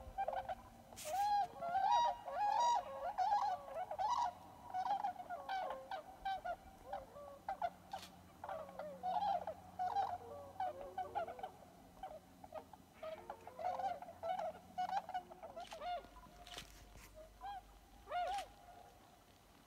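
A flock of tundra swans calling, with many short calls overlapping at once. The calls are busiest in the first half and thin out toward the end.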